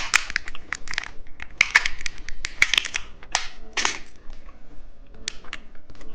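Close-miked chewing of a soft turtle-shaped gummy candy: irregular wet mouth clicks and squishes.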